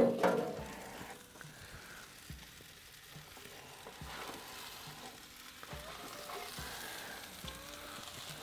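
Chopped onions and red bell peppers sizzling on a metal sheet tray in a wood-fired brick oven, a steady sizzle with faint crackles as the tray is pulled out. A sharp knock right at the start.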